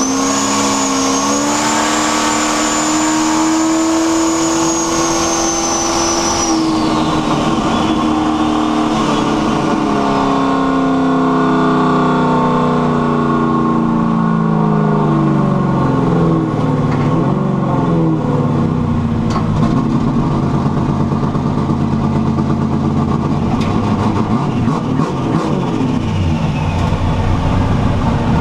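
Carbureted engine with a rear-mounted turbo pulling under boost, the turbo's high whistle rising and then holding for several seconds. After about six seconds the whistle drops away and the engine revs wind down steadily, settling into a low, even run for the last part.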